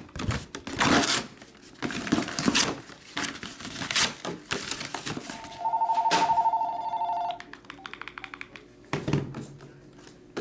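An electronic telephone ring, two close tones trilling together for about a second and a half near the middle. Before it come rustles and knocks of cardboard and plastic packaging being handled.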